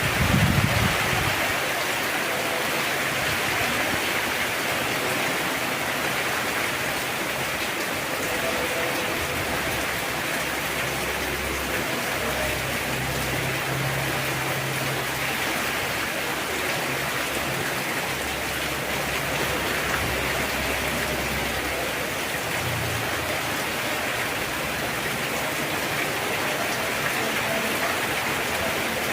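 Heavy rain pouring down steadily: an even, unbroken hiss of downpour.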